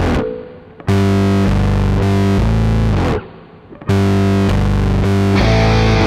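Rock backing music: distorted electric guitar chords in blocks of about two seconds, stopping twice for a short pause, with a fuller sound coming in near the end.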